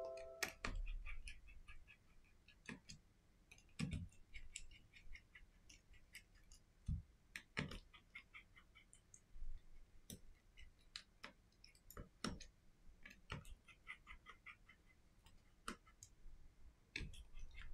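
Small, irregular clicks and taps of metal tweezers and tiny screws against a disassembled phone's frame and a silicone repair mat, some clicks trailing into quick faint rattling ticks. A brief metallic ring sounds right at the start.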